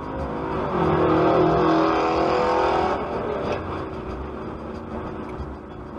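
Car road and engine noise on a highway, with a car horn held steady for about two seconds starting about a second in as a sedan cuts in ahead.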